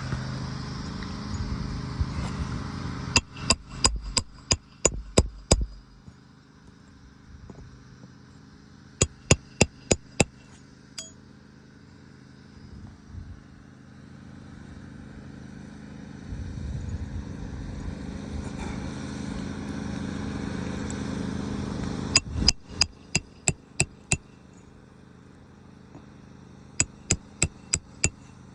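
Hammer blows driving roofing nails up under asphalt shingles through a roof snake nailing tool. They come in four quick bursts of several sharp blows each.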